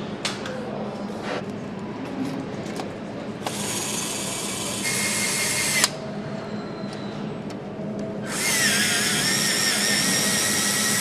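Handheld power nutrunner tightening bolts on a BMW S1000RR engine: it whirs twice, for about two to three seconds each time, and each run stops suddenly with a click. A few light clicks and knocks of parts come before the first run.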